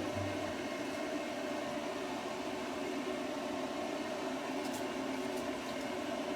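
Steady machine hum with a light hiss, as from a running motor or fan, with a few faint ticks near the end.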